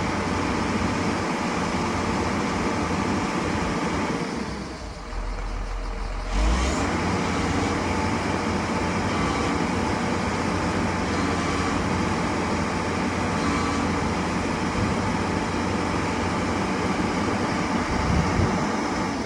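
Hitachi excavator's diesel engine running steadily under work, dipping briefly about four to six seconds in.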